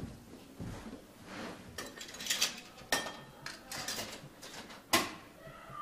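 Coins dropped into a drinks vending machine's coin slot, clicking and rattling through the coin mechanism in a string of sharp metallic clicks.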